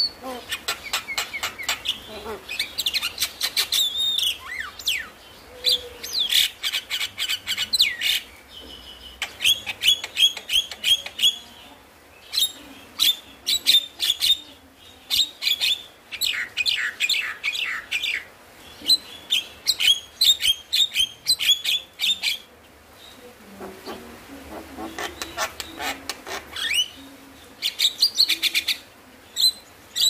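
Javan myna singing in phrases of rapid clicking chatter mixed with whistled, rising and falling notes, broken by brief pauses.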